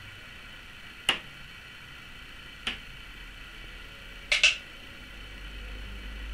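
Sharp mechanical clacks of model railway point motors being switched: one about a second in, another a second and a half later, then a quick double clack a little after four seconds. A low rumble starts to build near the end.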